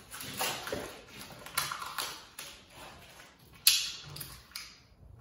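Protective plastic film being picked at and peeled off a stainless steel worktop, giving short crackling, scraping rips, with one sharp tap against the steel about two-thirds of the way through.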